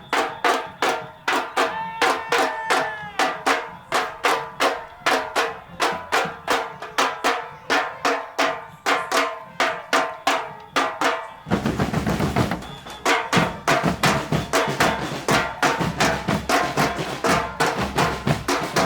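Murga percussion playing a steady, driving beat of drum strikes, about three a second. A low rumbling noise joins about two-thirds of the way through.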